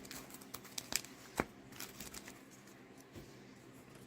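A deck of playing cards being shuffled by hand: soft card rustling with a few sharp snaps in the first second and a half, fading to faint handling after that.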